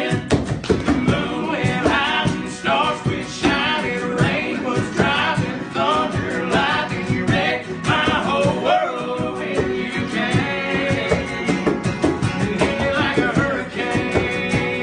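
Country song played live: a male lead voice sings over strummed guitars and a steady beat. The full band comes in right at the start, after unaccompanied singing.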